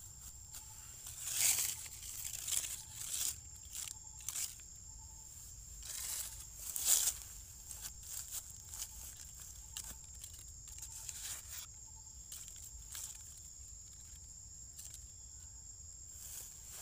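Irregular rustling and crinkling noises, loudest about one and a half and seven seconds in, over a steady high-pitched insect drone and a faint repeating chirp.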